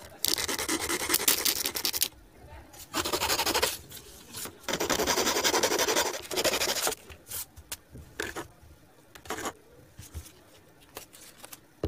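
Hacksaw blade rasping quickly back and forth against cardboard in three spells, about two seconds, one second and two seconds long, followed by a few light clicks and taps.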